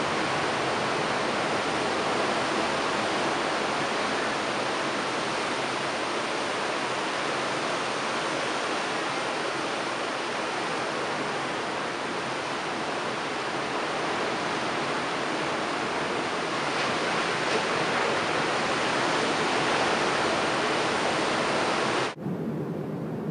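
Ocean surf breaking and washing over a lava-rock shoreline, a steady rushing noise of waves. About 22 seconds in it cuts abruptly to a quieter, duller rumble.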